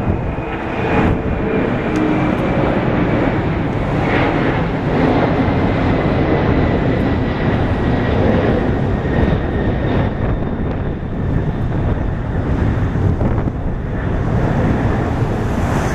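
McDonnell Douglas MD-11F three-engine jet freighter climbing out after takeoff: a loud, continuous jet rumble with a faint whine that slowly falls in pitch as the aircraft draws away.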